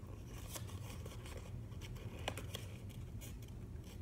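Faint small clicks and rustles of fingers handling a small sushi-cat figurine, over a low steady hum.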